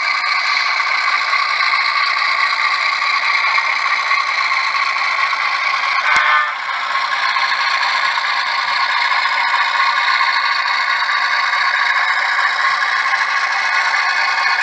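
Model freight train rolling along the track: a steady rattle and scrape of small metal wheels on rail, with one sharp click about six seconds in.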